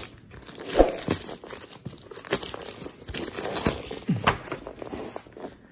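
Plastic courier packaging crinkling and rustling as a parcel is handled and turned over, with a single knock a little under a second in.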